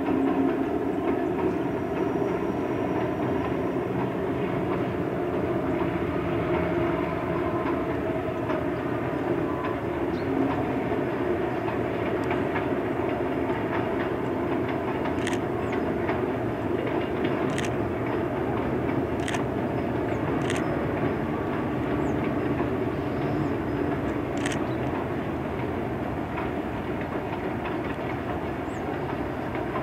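Freight train hauled by an MLW MX627 diesel-electric locomotive, its ALCO 251 V12 engine running, rolling steadily across a steel trestle viaduct with the rumble of the wagons. A few sharp clicks of wheels over rail joints in the second half.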